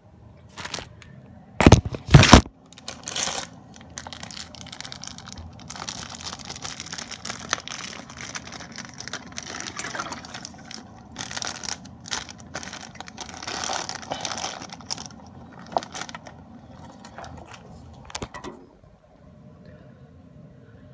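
Close handling noise: two loud knocks about two seconds in, then a long stretch of rustling hiss and small clicks and rattles that stops near the end.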